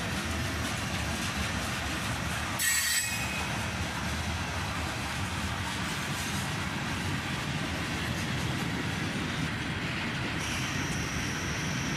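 Freight cars rolling past on the rails with a steady rumble of wheels on track. A brief high wheel squeal comes about three seconds in, and a thin high squeal starts near the end.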